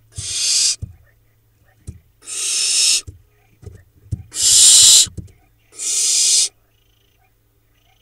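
Barn owl nestlings giving four harsh hissing calls, each under a second long and about a second and a half to two seconds apart, with a few faint knocks between them. These are the rasping 'snore' calls young barn owls use to beg for food.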